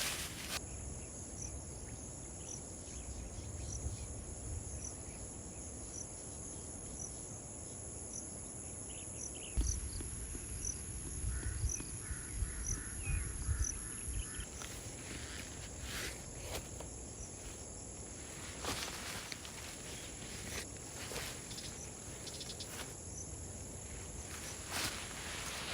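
Insects shrilling steadily at a high pitch, with a faint chirp repeating about once a second. Wind rumbles on the microphone, stronger for a few seconds near the middle, and there are a few soft rustles later.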